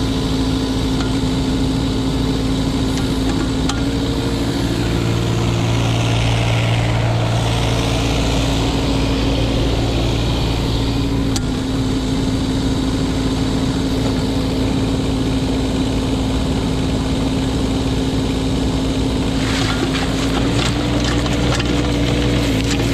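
Kubota K008-3 mini excavator's three-cylinder diesel engine running steadily while the hydraulics work the boom and arm, its note shifting slightly each time a function takes load. A run of clanks and rattles comes near the end as the machine moves.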